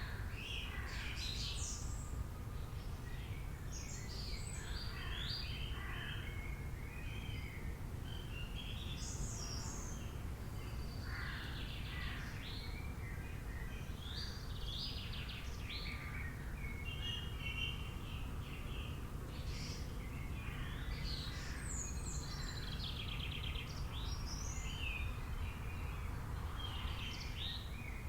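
A chorus of several wild birds chirping and singing, with many short overlapping calls and trills, over a steady low rumble.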